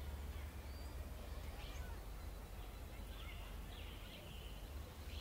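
Steady low wind rumble on the microphone, with faint short high chirps scattered through the middle.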